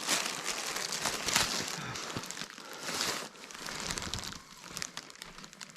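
Plastic packaging around a pack of pillows crinkling and rustling as it is handled and pulled open, loudest at a few moments about a second and three seconds in.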